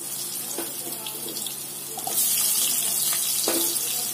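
Raw potato chunks sizzling in hot oil in a kadai as pieces are dropped in one after another. The hiss grows louder about two seconds in as more potato goes into the pan, with a few light knocks as pieces land.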